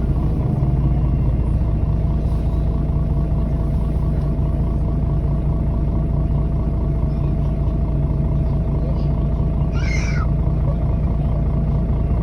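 Mercedes-Benz O530G Citaro articulated bus's diesel engine running steadily, with a short high squeak about ten seconds in.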